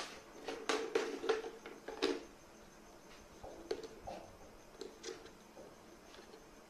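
Plastic clicks and knocks from handling an electric HVLP paint sprayer as its front nozzle cap is unscrewed, with several sharp clicks in the first two seconds and fainter taps after.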